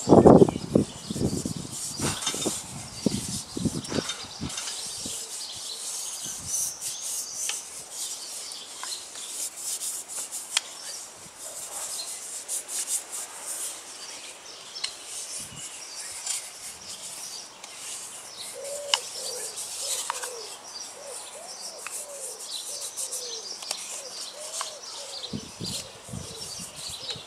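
Fingers rubbing olive oil into a carved birch kuksa cup, a soft skin-on-wood rubbing and handling that goes on throughout. Birds call in the background, with a run of repeated lower calls about two-thirds of the way through.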